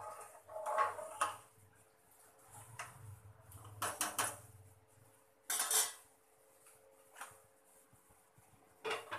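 A metal slotted spoon stirring rice in a pot of boiling water, knocking and clinking against the metal pot several times, loudest a little past halfway. Near the end a glass lid is set down on the pot with a clink.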